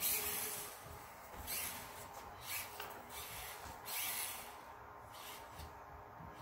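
Axial SCX24 1:24-scale RC crawler's small electric motor and gear train whirring in several short spurts as it is driven on a wooden floor, dying away after about four seconds when it stops.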